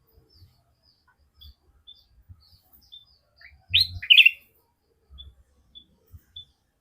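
Kutilang emas (golden bulbul) calling: a run of short, high chirps about two a second, broken about four seconds in by a much louder two-part call.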